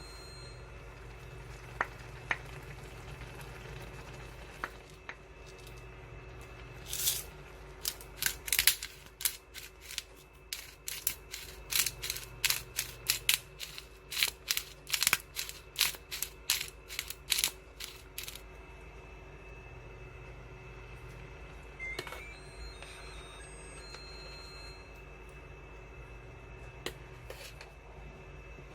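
Kitchen food-preparation sounds: a run of short, crisp scraping strokes, about two a second, for roughly ten seconds in the middle, with a few single clicks before and after over a low steady hum.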